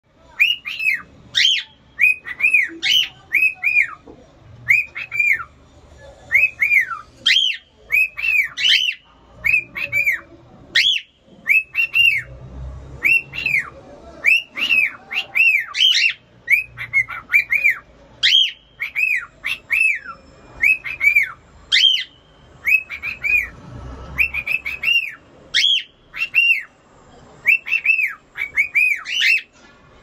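Grey cockatiel singing a whistled song: quick runs of two to four short arched whistle notes repeated over and over with brief gaps, some notes sweeping sharply up in pitch.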